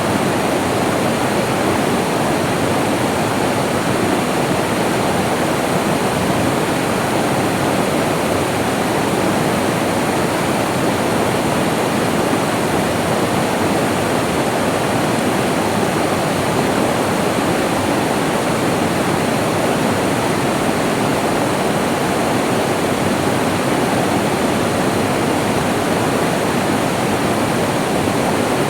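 Rainforest stream of rushing water, flowing steadily and evenly.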